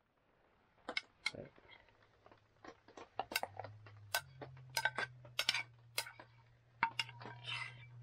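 Metal cooking utensils and camp dishes clinking and knocking in a run of sharp clicks, with a low steady hum coming in about halfway through.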